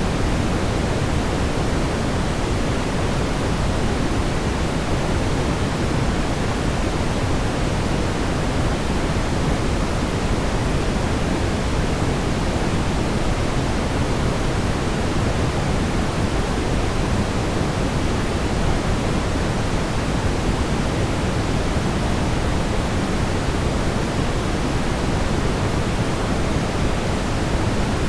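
Steady brown noise: an even, deep rumbling hiss, strongest in the low end and falling off toward the highs, with no changes.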